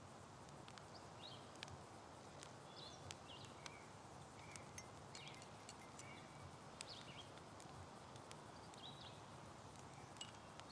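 Near silence: faint outdoor ambience with scattered, faint bird chirps.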